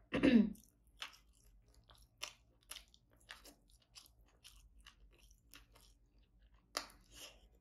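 Close-miked chewing of rice and crispy fried tilapia: wet crunches and mouth clicks, roughly two a second. It opens with a short loud mouth sound that falls in pitch, and there is a louder pair of crunches near the end.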